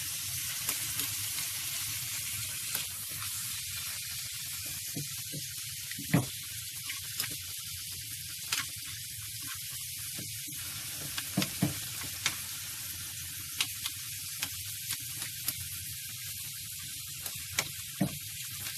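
Chicken pieces and chopped red pepper sizzling steadily in oil in a frying pan. A spatula stirring the food scrapes and clicks against the pan now and then, loudest about six seconds in.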